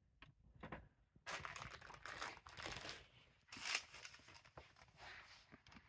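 A cat shifting around inside a fabric tote bag, the bag rustling and crinkling in an irregular run of scrapes that starts about a second in and is loudest a little past the middle.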